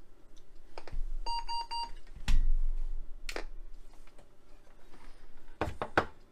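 An Apple Lisa's built-in speaker sounds four quick, evenly spaced electronic beeps about a second in. A thump follows, then a few sharp clicks near the end.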